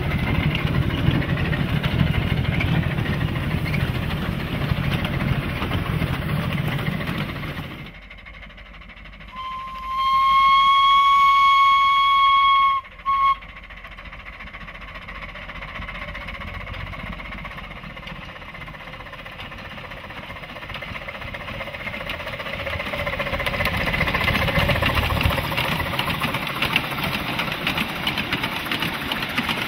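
Quarter-scale live steam locomotive, a copy of Denver & Rio Grande #268, sounding its steam whistle in one steady blast of about three seconds followed by a short toot. Before it, the low rumble of the train running on the rails. Near the end, the train noise grows louder as the locomotive crosses a trestle.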